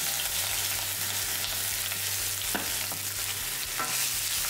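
Chopped red onions frying in hot oil in a stainless steel pan, a steady hiss as they are stirred with a wooden spatula, with a couple of light knocks.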